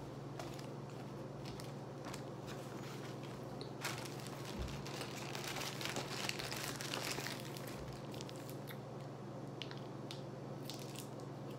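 Clear zip-top plastic bag crinkling as it is handled, busiest in the middle, over a steady low hum.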